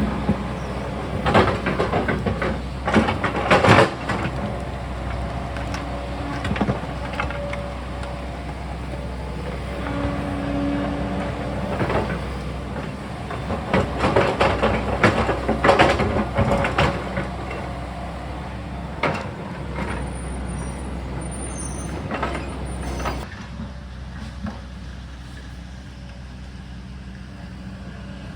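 Sany excavator's diesel engine running steadily under load, with repeated knocks, clanks and scraping of the bucket against rock through most of the stretch. It eases off and gets quieter near the end.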